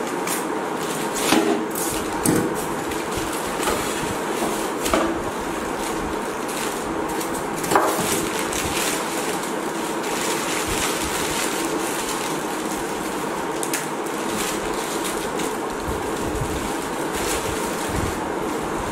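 Packaging being handled over a steady hiss: a few soft knocks and rustles as styrofoam end caps are pulled off a UPS inverter and its plastic bag is handled.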